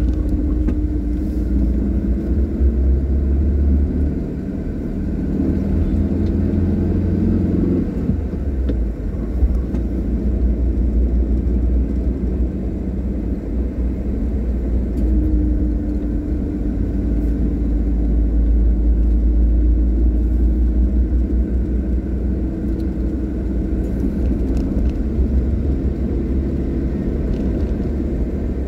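Car engine and road noise heard from inside the cabin while driving: a steady low rumble with an engine hum that fades out about eight seconds in and comes back about fifteen seconds in.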